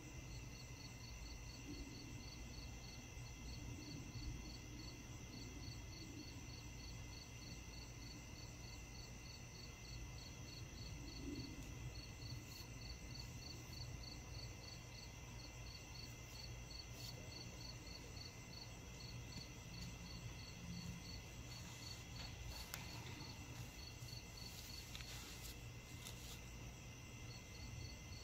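A faint evening chorus of crickets and other insects: several steady high trills with one rapidly pulsing chirp above them, over a low steady rumble.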